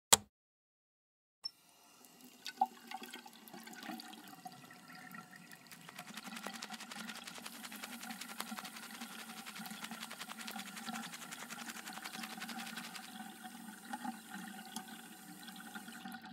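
A sharp click, then water running steadily in a bathroom for about fifteen seconds before it stops near the end, with a few small knocks as it starts.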